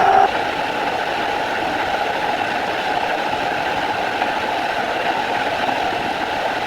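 Machine tool running steadily during gear cutting. A high, steady whine cuts off just after the start, leaving an even mechanical running noise.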